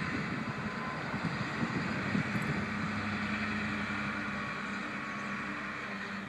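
Engine of heavy sand-moving equipment running steadily, a low even hum that holds one pitch, with some uneven rumbling in the first couple of seconds.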